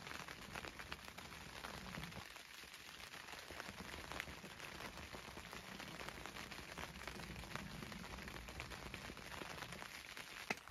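Light rain pattering on the fabric roof of a pop-up hunting ground blind: a faint, steady patter of scattered drops.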